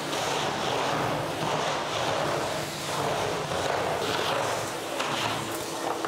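Homemade central vacuum system pulling air through its hose and floor brush as the brush is pushed over a bare concrete floor: a steady rush of air that swells and eases with the strokes. The motor unit is shut away behind closed doors, so the noise is mostly air in the pipe.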